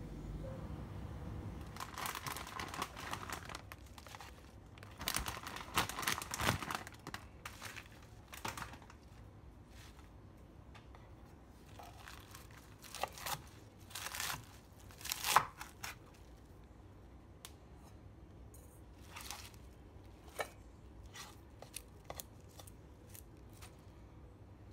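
Lettuce leaves being torn and crumpled by hand, in irregular crisp rustling bursts that are busiest through the first half and thin out to a few light rustles and taps later.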